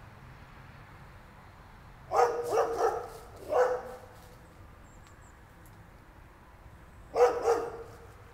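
A dog barking in short runs: three quick barks about two seconds in, one more a moment later, then two more near the end.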